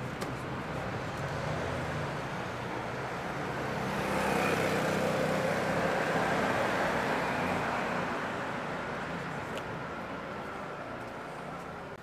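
A motor vehicle passing, its engine hum and tyre noise swelling about four seconds in and then fading away.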